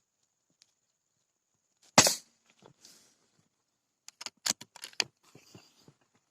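A single sharp .177 air-rifle shot about two seconds in, followed about two seconds later by a quick run of small clicks and rustles.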